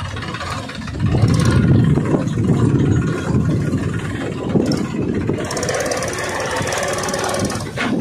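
Homemade mini tractor's small engine running as it pulls a loaded trolley, louder from about a second in.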